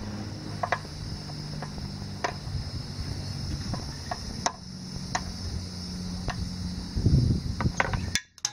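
Light, irregular metal clicks of a 5 mm Allen wrench turning a cowling bolt out of a Yamaha F250 outboard, over a steady low hum. A louder rumble of handling comes about seven seconds in, and the sound cuts off suddenly near the end.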